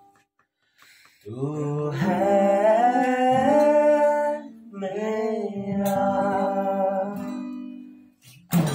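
Acoustic guitar strummed while a man sings along, starting about a second in after a brief pause.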